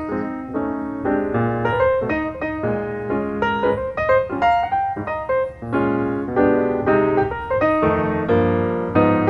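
Background piano music with a melody over a bass line.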